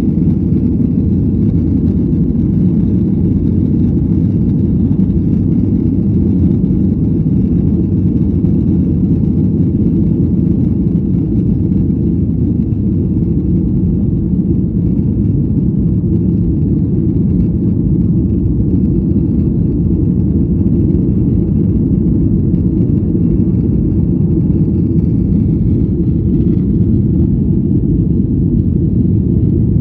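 Steady cabin noise inside a Boeing 737 climbing after takeoff: an even, deep rumble of the jet engines and rushing air that holds level throughout.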